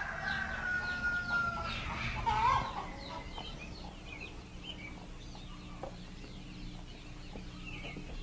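Chickens clucking and calling: one longer call that slides slowly down in pitch in the first two seconds or so, then softer, scattered short calls.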